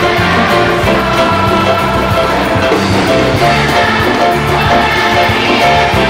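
Live music from a large youth orchestra with guitars, saxophones, brass and strings, playing an upbeat piece over a steady repeating bass line.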